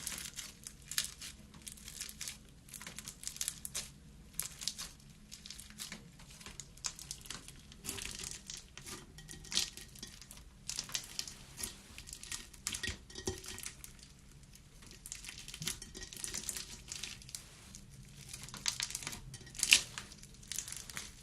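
Slime being squeezed and poked by hand, giving a dense run of small irregular crackles and pops, with one sharper pop near the end.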